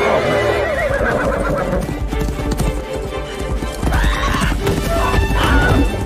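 A horse galloping, its hoofbeats coming thick and fast, with a whinny about four seconds in, over background music in a film soundtrack.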